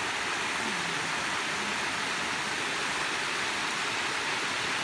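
Small stream cascade rushing steadily, an even hiss of running water.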